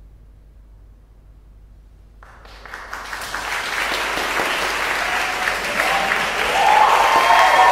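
Audience applauding: after about two seconds of hush, clapping breaks out and swells steadily louder.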